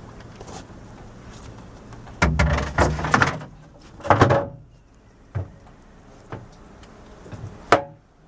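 A series of knocks and thuds with some clatter, loudest in a cluster two to three and a half seconds in, with single sharp knocks later.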